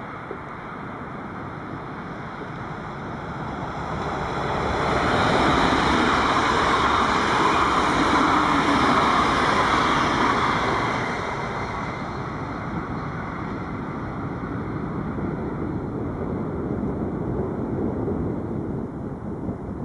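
A train passing: a rushing rumble that swells about four seconds in, stays at its loudest for several seconds, then eases off to a lower rumble.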